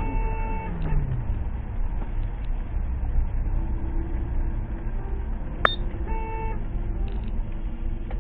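Car horn honking: a held honk that stops under a second in, then a second short honk about six seconds in, over the steady low rumble of a car driving. A single sharp click comes just before the second honk.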